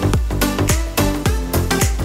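Background electronic dance music with a steady beat of about two beats a second.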